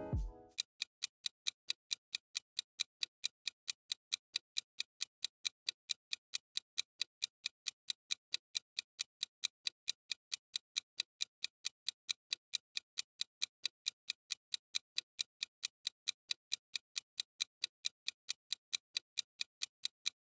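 Ticking-clock sound effect timing a quiz countdown: a steady run of even, rapid ticks. Piano music fades out in the first half second.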